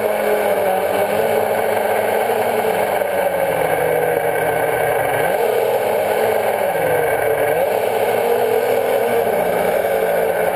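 Quadcopter's electric motors and propellers whirring steadily, close to the microphone of the drone's own camera. The pitch wavers up and down as the motors change speed to manoeuvre, most markedly about halfway through.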